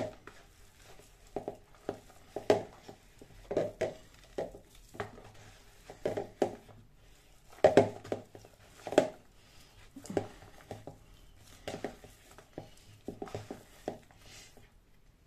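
Hands kneading an oily pestiño dough in a plastic bowl: irregular dull knocks, about one or two a second, as the dough is pressed and pushed against the bowl.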